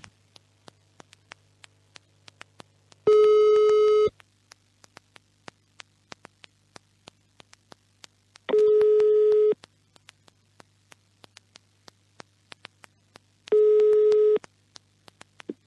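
Telephone ringback tone heard down a phone line while a call waits to be answered: a single-pitched ring about a second long, sounding three times about five seconds apart. Faint regular clicks and a low steady line hum fill the gaps between rings.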